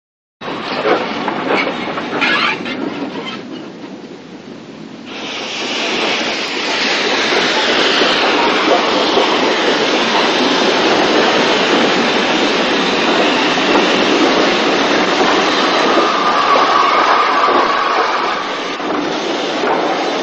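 Steam-hauled train running past on the rails, a loud steady rumble and rattle of wheels and coaches. The sound switches abruptly about five seconds in from a quieter, clicking stretch to the full noise of the passing train.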